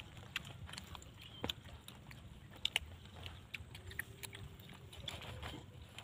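Scattered short, sharp clicks and crackles of grilled bird meat being torn by hand and cut with a large knife on a banana leaf, mixed with chewing as the meat is eaten.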